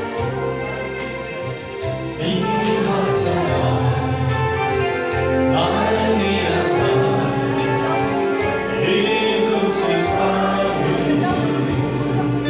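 A Christian worship song played by instruments with sustained bass notes. Singing voices come in about two seconds in, and the music is louder from then on.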